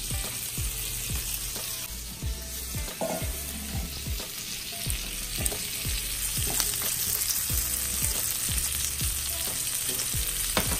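Duck fat sizzling in the pans with a steady hiss, broken by irregular knocks and scrapes of a spoon against a stainless steel pot as fried potatoes are scooped out.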